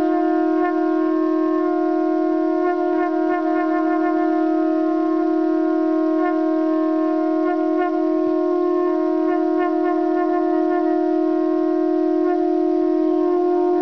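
Conch shells (shankha) blown in one long, unbroken, steady note that is held without a breath.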